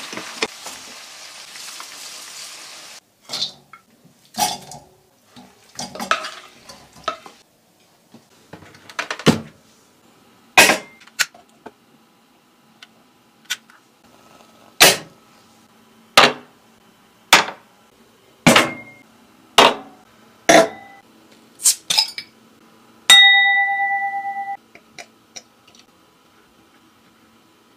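Ribs sizzling as a wooden spatula stirs them in a frying pan for about three seconds. Then a run of sharp, separate clinks and knocks of tableware, and about 23 seconds in one ringing clink that lasts about a second and a half.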